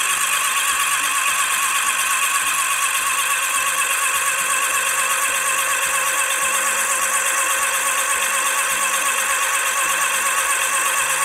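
Starter motor cranking a Classic Mini Cooper S A-series engine with its spark plugs out, a loud, steady whirring with no compression pulses as the engine spins freely. It is turning the engine over to check that the replacement oil pump builds oil pressure.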